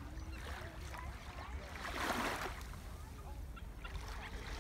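Steady low wind rumble on the microphone over a soft wash of calm sea water, with a brief louder swish about two seconds in.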